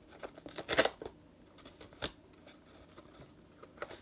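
Paper parcel being torn open by hand: a few short, sharp rustles and tears of paper and tape, the loudest just under a second in.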